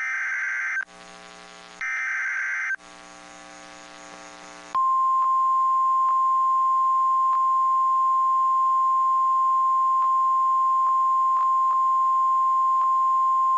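Emergency Alert System weather alert. Two short buzzy bursts of SAME header data are followed, about five seconds in, by the long steady single-pitch 1050 Hz NOAA Weather Radio warning tone, which signals that a warning message follows.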